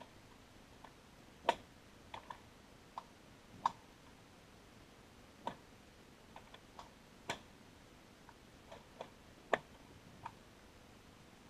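Lake ice cracking and settling, heard underwater from the lake bottom: irregular sharp clicks and pops, more than a dozen, the loudest about a second and a half in and near the end.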